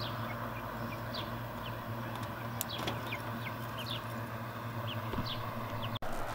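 Young chickens peeping: short, high, falling calls scattered throughout, over a steady low hum.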